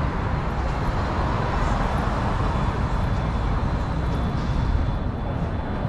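Steady rush of wind and road noise from riding a bicycle, with a heavy, uneven low rumble like wind buffeting a microphone.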